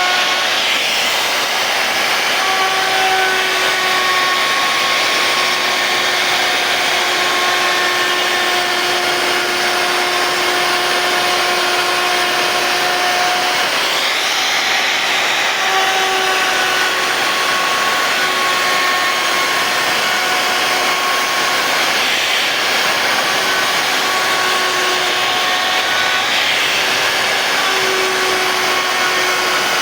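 CNC router spindle running at high speed while cutting wood: a steady whine and hiss, with a few held tones that change pitch every few seconds as the machine moves.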